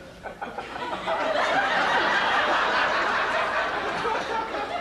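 A group of people laughing, swelling about a second in and carrying on steadily.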